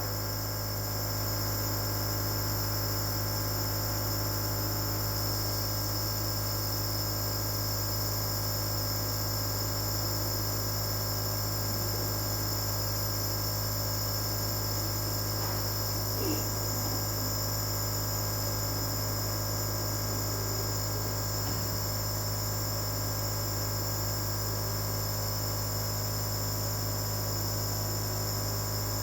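Nebulizer compressor running steadily, a constant hum with a thin high whine over it.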